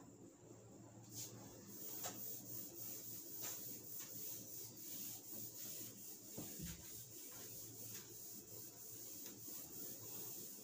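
Cloth wiping marker writing off a whiteboard: a run of faint rubbing strokes.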